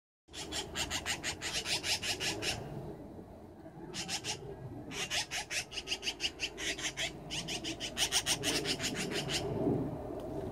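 Black-billed magpies chattering: four runs of harsh, rapid rattling notes, about nine a second, the scolding alarm chatter that magpies raise at a cat.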